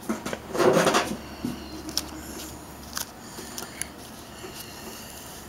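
Handling noise from the metal housing and shaft of an old Model A Ford wiper motor being turned over in the hands: a short rustle near the start, then a few light, separate clicks.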